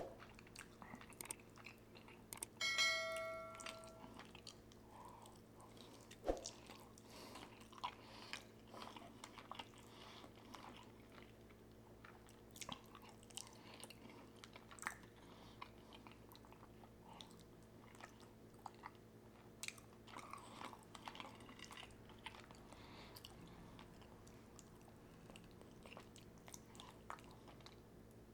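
A person chewing food close to the microphone, with faint wet mouth clicks and smacks scattered throughout. About three seconds in there is a short ringing tone lasting about a second, and a single knock a few seconds later.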